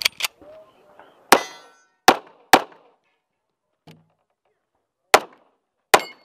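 A Rock Island Armory 1911 pistol fired in a string of sharp, loud shots: a couple at the very start, three more between about one and two and a half seconds in, then a pause of over two seconds and two last shots about a second apart near the end. The shot about a second in trails a short metallic ring.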